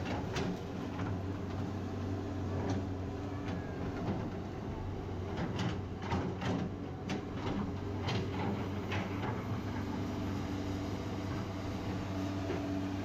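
Excavator's diesel engine running steadily, with a run of sharp metallic clanks and knocks in the middle stretch as it works.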